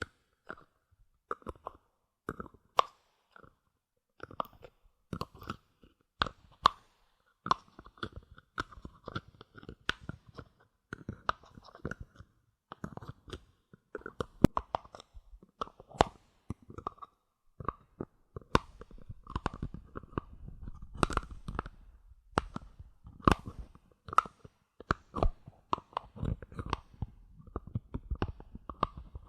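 Bottle caps being tapped, clicked and handled: a quick, irregular run of sharp clicks, growing denser in the second half with a soft low rumble under them.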